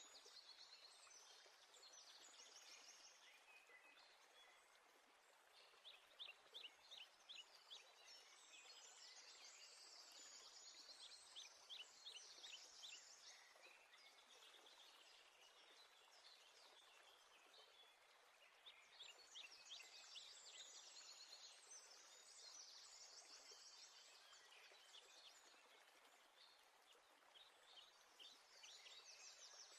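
Faint birds chirping in quick trills, in several bouts over a low steady hiss.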